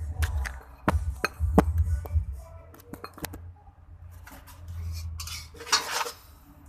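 Kitchen dishes and utensils clinking and knocking, with several sharp clinks in the first two seconds and a short rushing noise near the end.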